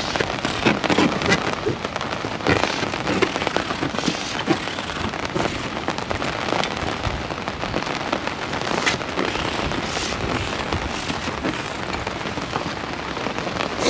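Steady rain pattering on a fishing umbrella's canopy overhead and on the lake surface, a dense run of small drop ticks.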